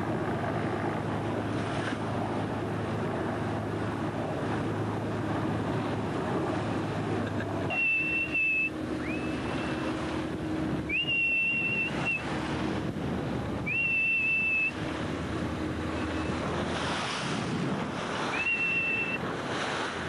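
Wind buffeting the microphone and choppy sea splashing against a small boat, with a steady low engine hum for the first eight seconds or so. In the second half, five short high tones sound, each sliding up into a held note for about a second.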